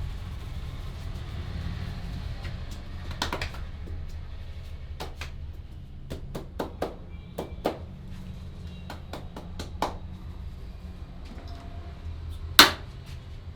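Hands at work in a barber's head massage: a series of sharp, separate slaps and snaps at irregular intervals, a quick cluster about halfway through and the loudest one near the end, over a steady low rumble.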